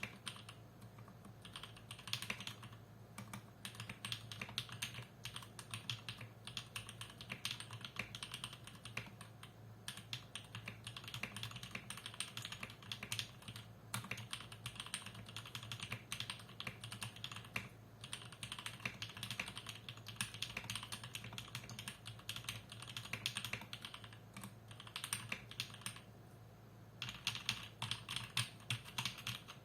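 Fast typing on a custom 65% mechanical keyboard with lubed Jwick Yellow linear switches, a stacked acrylic sandwich case, a 2 mm plate and OEM-profile keycaps. The keys click in quick runs of several seconds, broken by brief pauses, over a faint steady low hum.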